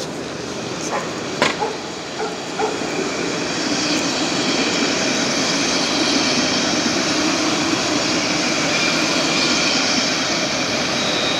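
Electric low-floor tram passing close by on street track: a swelling, steady rush of wheels and running gear with a thin, even high whine from its traction equipment, starting a few seconds in and holding. Before it arrives, a few sharp knocks, the loudest about a second and a half in.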